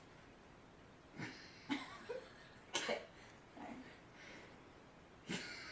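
Stifled giggling: about half a dozen short, faint breathy bursts of suppressed laughter with quiet gaps between them.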